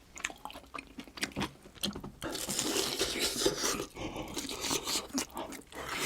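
Close-miked chewing of a crunchy breaded cheese pork cutlet: scattered crisp crunches at first, turning into steadier, denser crunching and wet mouth sounds about two seconds in.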